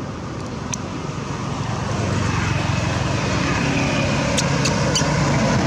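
A motor vehicle's engine running, growing louder about two seconds in as it comes closer, with a few short sharp clicks near the end.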